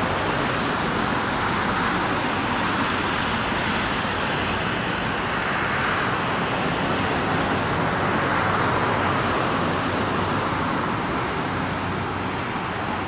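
Steady jet roar and rumble of an Airbus A350's twin Rolls-Royce Trent XWB engines as the airliner climbs away after takeoff. The noise swells slightly past the middle.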